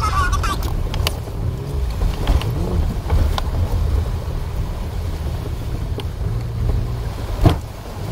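Jeep engine running at low speed as it crawls through a shallow creek, with water splashing against the vehicle. A few knocks along the way, the loudest a sharp one near the end.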